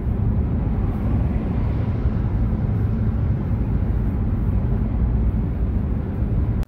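Steady low rumble of road and engine noise inside a car cabin while driving at highway speed.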